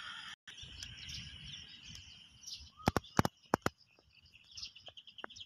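Insects and birds chirping in open farmland, with a fast run of evenly spaced chirps near the end. A low rumble runs underneath, and a few loud sharp clicks or knocks come about three seconds in.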